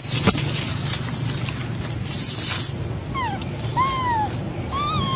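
Young macaque whimpering: from about three seconds in, three short, high, tonal coo calls, each arching up and then gliding down. Earlier, two harsh, high-pitched hissing bursts, the louder one about two seconds in.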